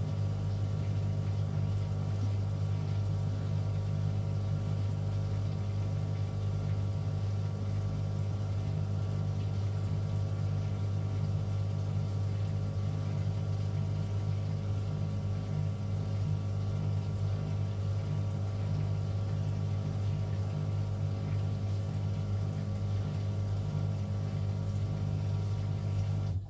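Beko bPRO500 washing machine's empty drum spinning at a steady speed during its calibration cycle: a steady motor hum that does not change in pitch, stopping abruptly at the end.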